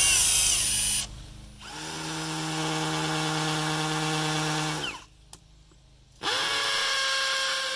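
Milwaukee M18 Fuel cordless hammer drill with a masonry bit drilling into a stone wall. There is a short burst first, then a run of about three seconds, a brief pause, and another run near the end, its motor whine rising as it spins up each time.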